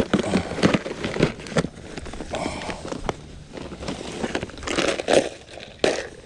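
Irregular crackling and rustling, a run of short sharp scrapes and knocks.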